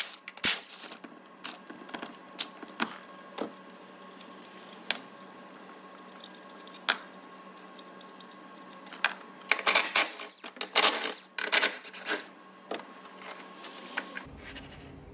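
Metal tools, sockets and bolts clicking and clinking against the engine and bracket as the engine mount bolts are undone, in scattered single knocks. About ten to twelve seconds in they come as tighter clusters of rapid clicks.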